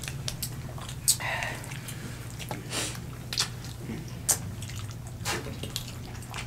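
People eating seafood-boil crab legs and shrimp with their hands: scattered short wet smacks and clicks of chewing and picking at the food, over a steady low hum.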